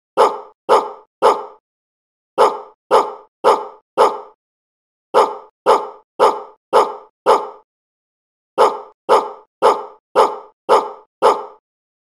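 A dog barking, the same bark repeated about twice a second in groups separated by short pauses. Each group is one bark longer than the last: three, then four, five and six.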